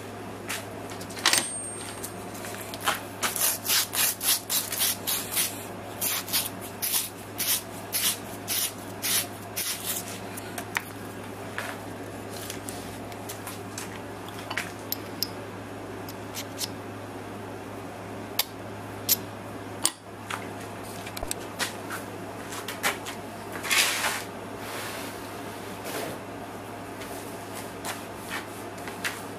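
Steel shaft being deburred by hand: rhythmic scraping strokes, about two or three a second, for several seconds, then scattered strokes. The burr left from cutting the snap ring groove is keeping the bearing from sliding on.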